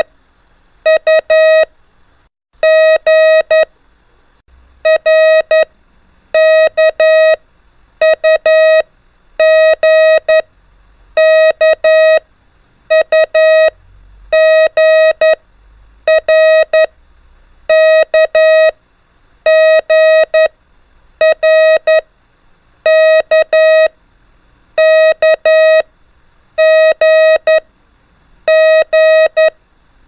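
Morse code (CW) practice tone sending the letters R, K, U and G over and over: short and long beeps of one steady pitch, three to a letter, a letter about every second and a half.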